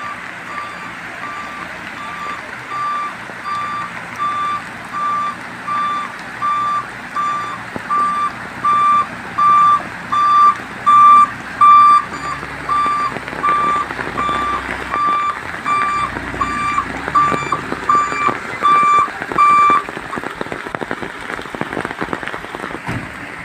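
Sand truck's reversing alarm beeping steadily, about one and a half beeps a second, growing louder toward the middle and stopping shortly before the end, over a steady hiss of rain.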